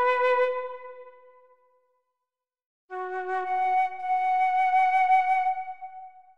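Background music: a melody of a few long held notes that fades out about a second and a half in, then a gap of silence, then a second phrase of sustained notes from about three seconds in that fades away near the end.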